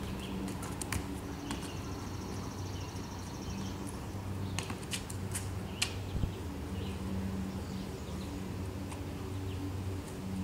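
Outdoor park ambience: a steady low hum under a bird's high rapid trill lasting about two seconds near the start, then a few sharp faint clicks around the middle.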